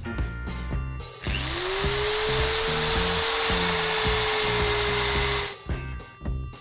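Electric drill spinning up about a second in and running steadily as its bit bores through a round lid, then stopping about four seconds later. Background music with a steady beat plays throughout.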